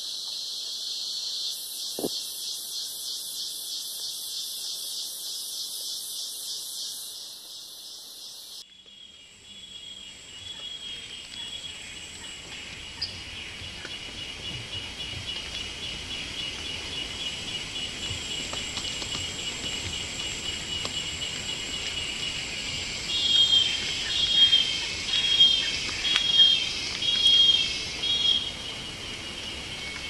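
Rainforest insects make a fast, pulsing, high-pitched trill that cuts off suddenly about nine seconds in. After that a steadier insect buzz runs on, and near the end comes a series of about six loud whistled bird calls, roughly one a second.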